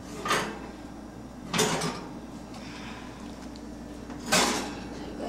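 Wire oven rack and baking pan scraping as they are slid into an open oven: three short sliding scrapes, the first two about a second apart and the third near the end.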